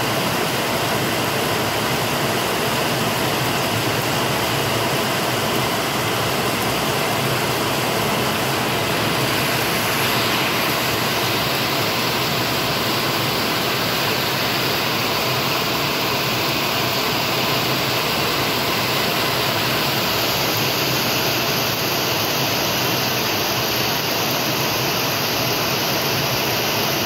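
Heavy rain pouring steadily, a dense unbroken hiss.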